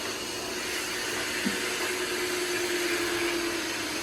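Roomba Combo's auto-empty dock running steadily with a droning hum, sucking the dirt out of the robot's dustbin. There is a short knock about a second and a half in.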